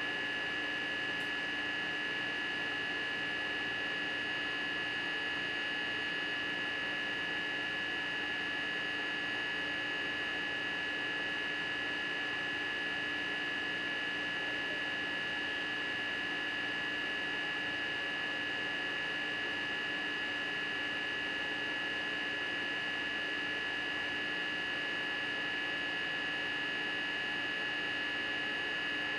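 Steady, unchanging machinery hum with a high whine over it.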